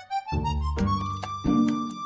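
Background music: a lead melody note that slides up and is held, over a repeating bass line and a light beat.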